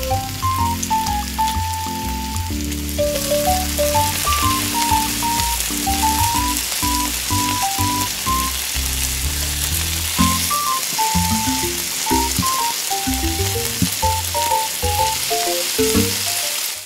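Hot oil sizzling and bubbling in a small steel wok as crumb-coated pieces of frog deep-fry. The sizzle fills out about three seconds in and then holds steady, with light background music playing.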